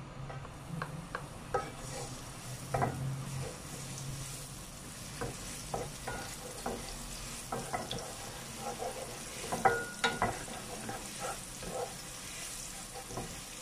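Minced garlic sizzling in hot oil in a nonstick frying pan, stirred with a wooden spatula that scrapes and taps against the pan in frequent short strokes. The knocks are loudest about ten seconds in.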